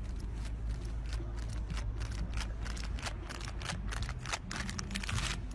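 Chain-link fence rattling and clinking under a clinging, scrambling cat, a run of sharp clicks that grows busier near the end, over a low wind rumble on the microphone.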